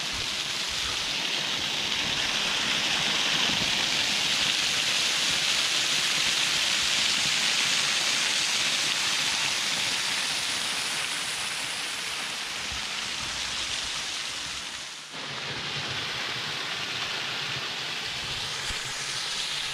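Waterfall water rushing and splashing down a narrow rock chute as a steady hiss. It breaks off briefly about fifteen seconds in and carries on a little quieter.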